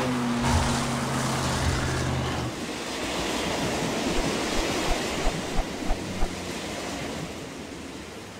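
Soundtrack effect of wind and sea surf: a steady rushing noise. A low held hum runs through the first couple of seconds, and a few soft thumps sound in the middle.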